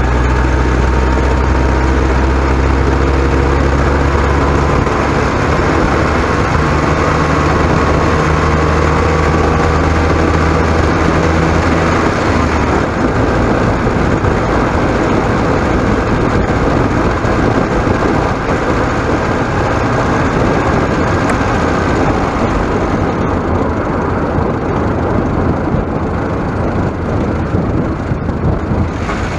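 Motor vehicle driving under a moving camera: engine hum whose pitch rises slowly over the first dozen seconds, then a steady rushing noise of wind and road.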